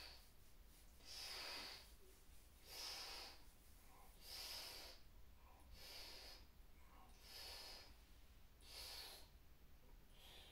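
Faint, short sipping inhalations through pursed lips, about seven in a row roughly a second and a half apart. This is yogic lung packing: extra air is drawn into already full lungs in small sips, like drinking through a straw.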